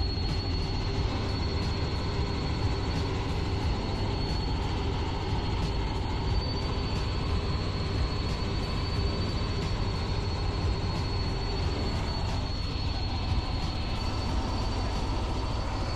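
Light helicopter in flight, heard from inside the cabin: a steady engine and rotor rumble with a thin, constant high whine above it.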